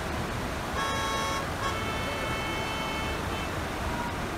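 Vehicle horn sounding twice, a short toot about a second in and then a longer, higher-pitched blast lasting about a second and a half, over a steady rushing background.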